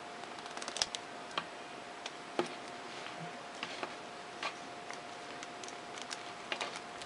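Small, scattered clicks and taps of a plastic action figure and its accessories being handled and posed, over a steady hiss with a faint steady tone.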